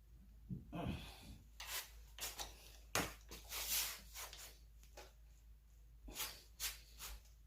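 Faint rubbing and scraping with a few sharp knocks as a wrench is forced round a very tight camshaft bolt on a Ford 3.7L Duratec V6, through its final angle-torque turn.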